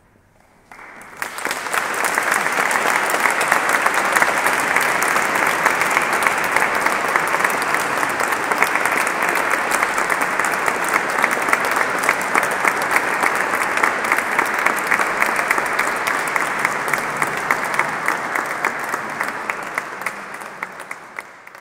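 Audience applauding in a church, the clapping starting about a second in and fading out near the end.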